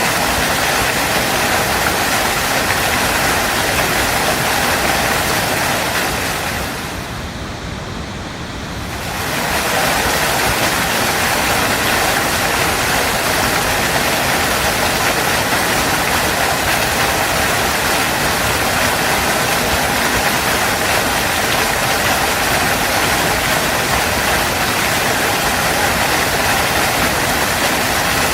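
Waterfall: a steady, dense rush of falling water. About seven seconds in it briefly drops in level for two or three seconds, then comes back as before.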